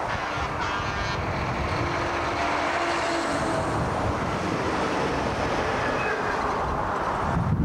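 Heavy trucks and highway traffic passing close by: a steady rumble of diesel engines and tyre roar as vintage semis hauling loaded lowboy trailers go past, with a brief louder rush near the end.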